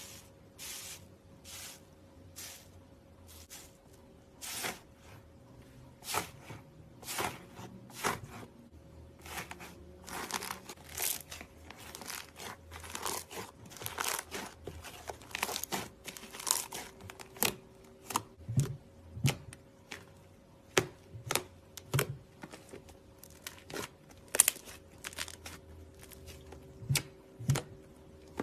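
Slime being squeezed and stretched by hand, giving irregular sticky pops and crackling clicks, one to three a second, over a faint steady hum.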